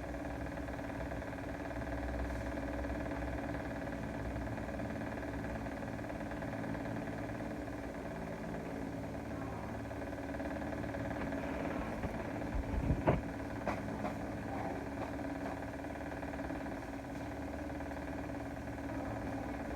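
Steady machine hum that holds throughout, with a few sharp knocks about two-thirds of the way through.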